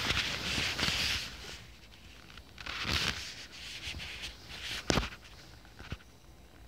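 Pillows and bedding rustling and scraping as a cat pushes through the gap between the headboard and mattress, in two bouts. A sharp tap comes about five seconds in and a fainter one about a second later.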